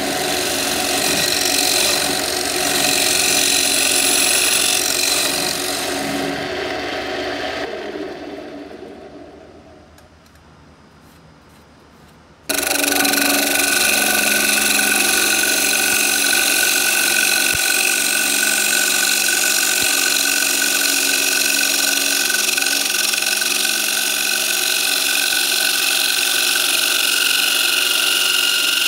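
Lathe chisel cutting a spinning walnut plate blank on a wood lathe: a steady scraping hiss of the cut with a few held tones. It fades away about eight seconds in, then comes back abruptly near halfway as the tool cuts the plate's rim.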